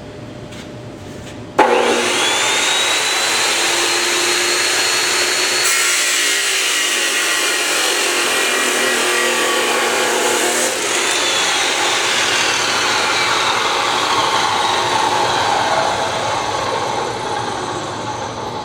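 Metal-cutting chop saw switched on with a sudden start and a rising whine as the blade spins up. It then cuts into metal for about five seconds with a harsher, brighter grinding noise. After the cut the motor runs on and winds down with a falling tone near the end.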